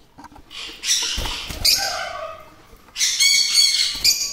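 Peach-faced lovebirds squawking harshly in a nest box. There are a few calls and a soft knock about a second in, then a rapid run of rasping squawks in the last second or so.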